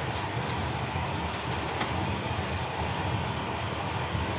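Steady rush of air and machinery noise inside a Boeing 777 cockpit with the aircraft's systems running on the ground, with a few light clicks in the first two seconds.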